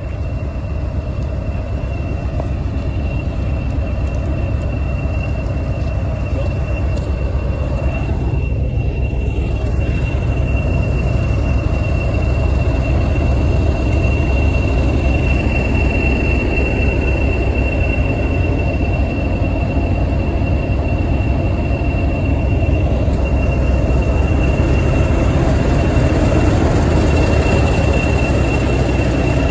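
English Electric Class 40 diesel locomotive 40106, its 16-cylinder turbocharged engine running with a steady deep drone under the high, steady turbocharger whistle that gives the class its 'Whistler' nickname. The sound slowly grows louder as the engine room and radiator grilles draw near.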